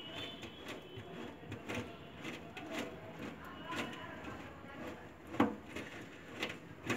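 Plastic waste pipe coupling being unscrewed by hand from a kitchen sink strainer: faint scraping and small clicks of plastic threads turning, with a sharper click about five and a half seconds in.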